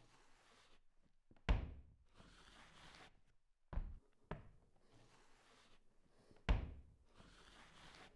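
Heavy pounding on a door: four dull thuds a second or two apart, the second and third close together and the third lighter, each with a short echo.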